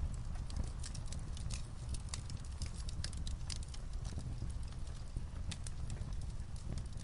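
A wood fire in a fireplace crackling, with many sharp, irregular pops several times a second, over a steady low rumble of light rain on a roof.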